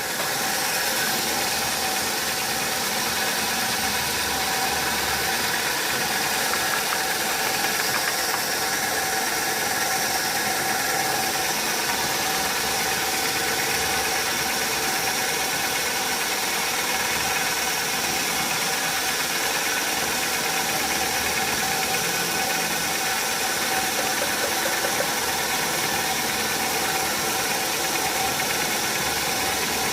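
Sawmill machinery running steadily: a continuous mechanical drone with a rattle, from the saw and the engine that drives it.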